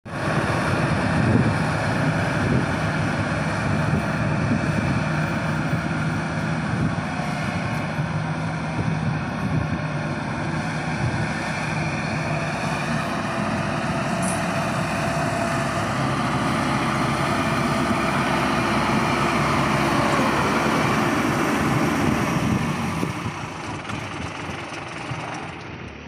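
Crawler-tracked rice combine harvester running steadily while cutting and threshing rice, its engine note steady under a dense mechanical clatter. The sound fades away over the last few seconds.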